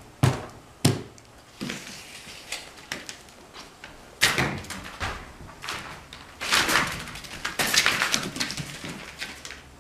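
A few sharp knocks, then footsteps crackling and rustling on a plastic drop sheet.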